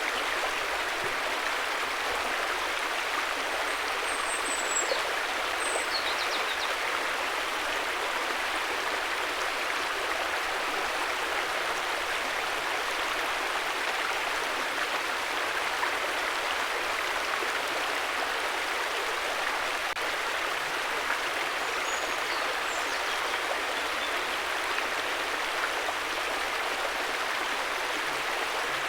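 River water flowing steadily over stones, an even rushing sound. A few faint high chirps come through a few seconds in and again past the middle.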